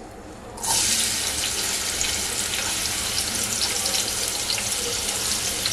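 Chopped onions dropped into hot oil in a pan start sizzling about half a second in: a sudden loud hiss that then goes on steadily with fine crackling.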